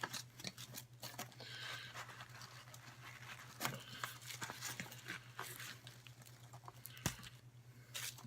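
Parcels being handled and unpacked: scattered light clicks, taps and rustles of packaging, with a sharper knock about seven seconds in, over a steady low hum.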